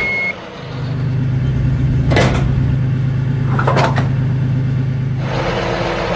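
A vehicle engine running at a steady low hum, with two short noisy bursts partway through. The last of a reversing beep is heard at the very start.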